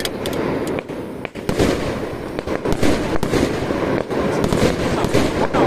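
Jiware ground fireworks crackling: a dense, continuous spatter of rapid pops and cracks.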